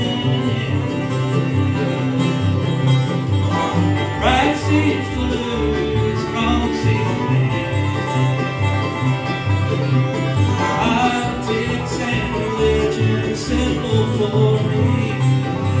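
Live bluegrass band playing: banjo, fiddle, mandolin and guitar over an upright bass walking a steady alternating bass line. A pitch slide rises about four seconds in.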